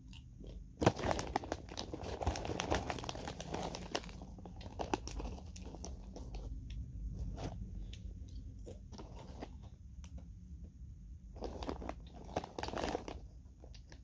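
Crisp banana chips being bitten and chewed: a sharp bite about a second in, a few seconds of dense crunching, scattered quieter chewing crunches, then another burst of crunching near the end.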